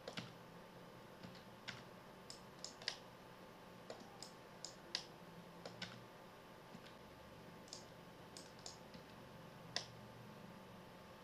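Faint, irregularly spaced clicks of a computer mouse and keyboard, a couple every second or so, over a faint steady hum.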